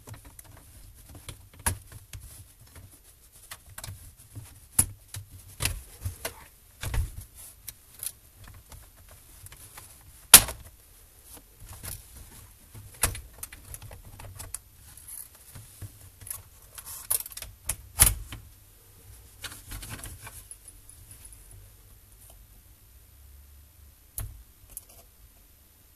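Irregular plastic clicks, snaps and taps as an Acer Aspire V3-771G laptop keyboard is pried out of its retaining clips with a plastic pry tool and lifted away, with handling rattles between; the loudest snaps come about ten and eighteen seconds in.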